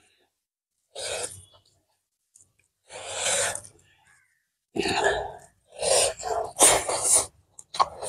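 Close-miked eating sounds from a woman eating rice and braised pork intestines by hand: five short, breathy, rustling bursts, the loudest ones in the second half.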